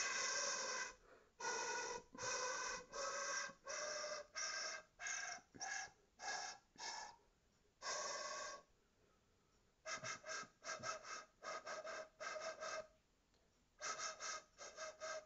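Homemade PVC-pipe recorder played: a run of separate notes climbing step by step in pitch, then after a short pause a string of quick, short notes on about the same pitch.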